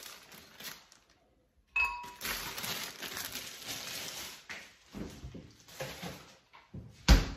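Blender jar of fruit being set onto its base: a short ringing clink about two seconds in, then a couple of seconds of handling rustle and a few scattered knocks, ending in a heavy thump near the end.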